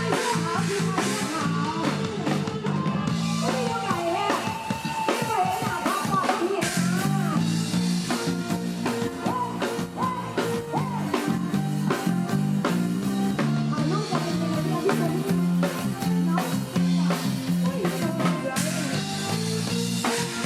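Live Isan band music: drum kit keeping a steady beat under a repeating bass line and electric guitar, with a wavering sung melody over the top.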